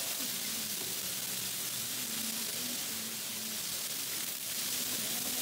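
Chicken skewers sizzling on a flat-top griddle: a steady hiss.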